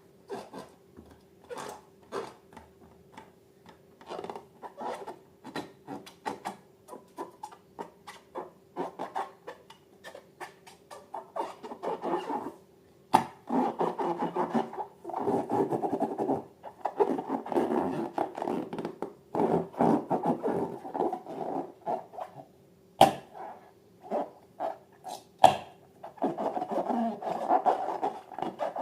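Slime being worked by hand: sticky clicks and pops at first, then from about twelve seconds in a steady run of squishing and rubbing, broken by a few sharp snaps. A faint steady hum runs underneath.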